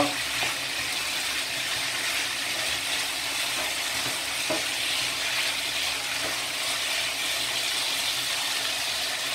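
Shredded chicken and pickled mustard stem sizzling in a nonstick wok while being stir-fried with a spatula: a steady, even sizzle.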